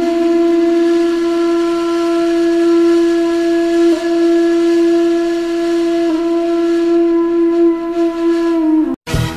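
A single long musical note held at a steady pitch for about nine seconds, wavering briefly twice, then cutting off abruptly near the end.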